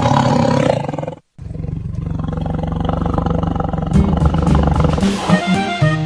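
A tiger roaring, one long roar that ends about a second in. After a brief silence, upbeat background music starts and gets fuller about four seconds in.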